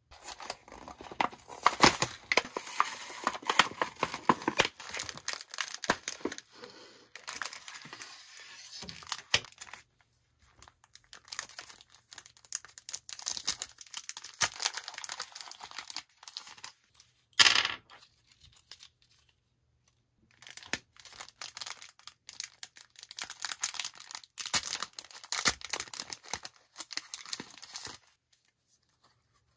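Clear cellophane plastic bags crinkling and being torn open, in three long bouts of crackling, with one short, sharp rip between the second and third.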